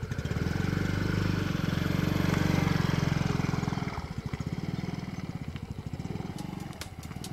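Yamaha RayZR Street Rally scooter's 125 cc air-cooled, fuel-injected Blue Core single-cylinder engine pulling away from idle. It grows louder over the first two to three seconds, then fades as the scooter rides off.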